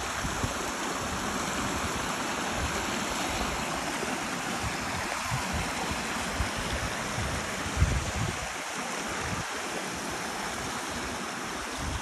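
Small rocky stream running in a little cascade: a steady, even rush of water, with a few short low bumps on the microphone, the strongest about eight seconds in.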